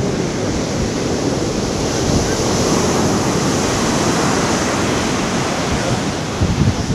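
Heavy storm surf breaking and washing up the beach: a loud, continuous rush that swells through the middle, with wind buffeting the microphone in low thumps near the end.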